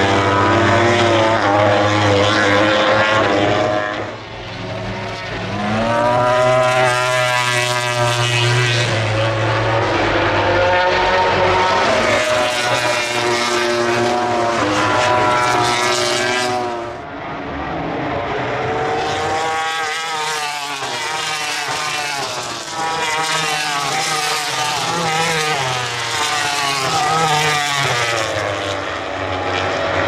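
Aprilia RS-GP MotoGP bike's big-bang V4 engine at racing revs, the pitch repeatedly falling and rising as the bikes brake into and accelerate out of corners.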